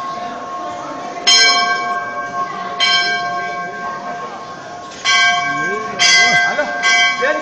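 A temple bell struck five times at uneven intervals, each strike ringing on into the next. People in the crowd talk underneath.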